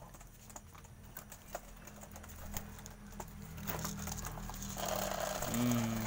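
Rapid, irregular clicking of domestic doves pecking at dried corn kernels, with a low steady hum rising in the second half.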